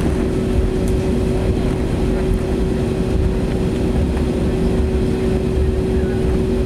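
Steady cabin drone of an Airbus A320neo taxiing, its Pratt & Whitney PW1127G geared turbofans at idle, with a constant hum running through it.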